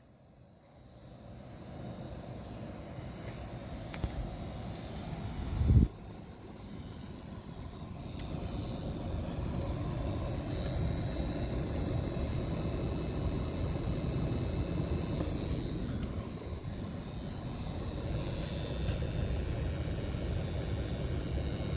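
LG Whisen Tower air conditioner making an electric spark sound, the sign of an electrical fault inside the unit: a click about four seconds in and a louder pop just before six seconds, over a steady rushing noise from the unit that grows louder about eight seconds in.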